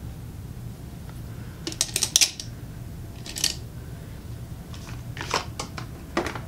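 Makeup containers and brushes being handled: a cluster of sharp clicks and taps about two seconds in, a brief soft rustle, then more clicks near the end.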